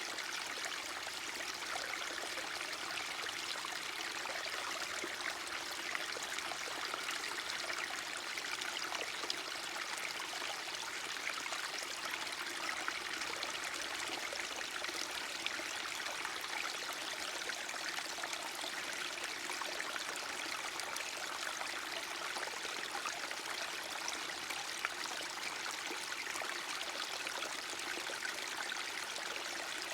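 A small forest stream running steadily, its water trickling and splashing in an even, unbroken rush.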